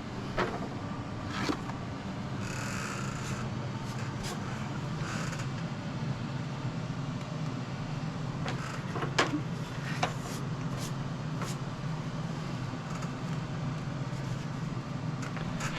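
Steady low hum of room background, with a few small sharp clicks and a brief rustle from hands working on the model.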